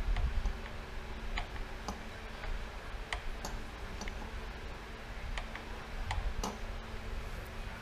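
Faint, irregular light metallic clicks and ticks as the piston and crankshaft of a Honda Rubicon 500 engine are worked by hand, over a faint steady hum.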